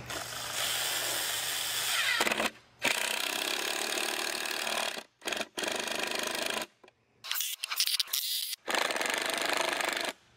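Cordless impact driver hammering screws into a pine board, running in several bursts with short pauses between them.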